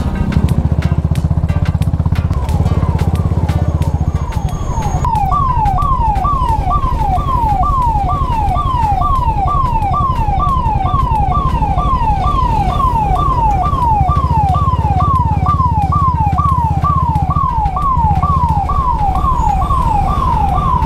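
Ambulance siren wailing in quick falling sweeps, about two a second, faint at first and loud from about five seconds in, over the steady low running of a motorcycle engine.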